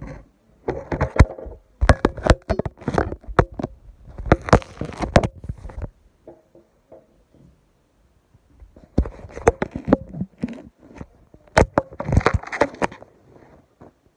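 Handling noise on the phone's microphone: a dense run of knocks, taps and rubbing as the phone is gripped and moved, in two bursts with a pause of about three seconds between them.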